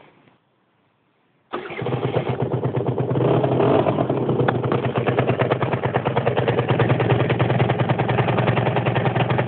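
A Peugeot Jet Force scooter engine with a Laser Pro Original aftermarket exhaust starts abruptly about one and a half seconds in, then runs steadily with a fast, even putter from the exhaust.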